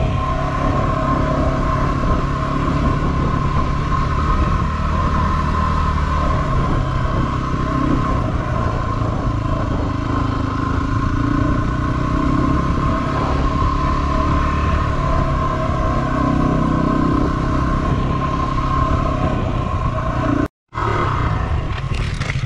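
A Yamaha WR250R's 250 cc single-cylinder four-stroke engine running at a steady pace on a dirt track. The sound drops out for a moment near the end.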